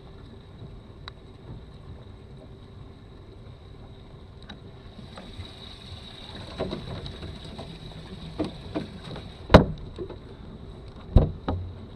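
Sharp knocks and thumps on a bass fishing boat, the loudest about two thirds of the way in and another near the end, over a faint steady hum. A hiss builds in the middle and stops with the loudest knock.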